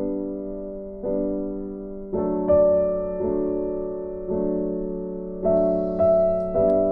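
Background keyboard music: sustained chords, with a new chord struck about every second.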